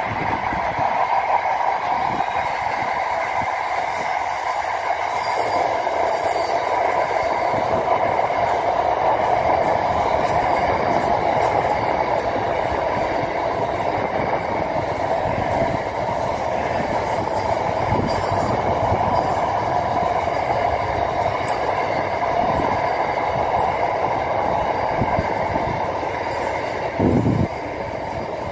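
Double-stacked container freight train's wagons rolling past close by: a steady rolling rumble with a constant ringing tone from the wheels. A brief thump comes near the end.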